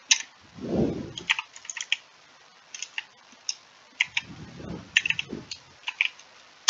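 Typing on a computer keyboard: irregular groups of sharp keystroke clicks. Between them come two low, muffled swells of sound.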